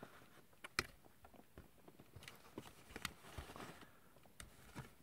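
Faint, scattered clicks and taps of hard plastic toy parts being handled on an action figure's armor stand, the sharpest just under a second in.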